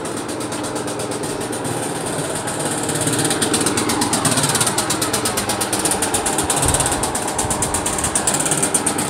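Diesel truck engine idling close by: a rapid, even clatter that grows louder about three seconds in.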